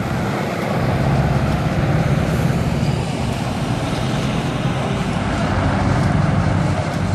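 A heavy truck's diesel engine running as the tractor unit turns through a junction and drives off: a steady low drone that swells and eases as it passes.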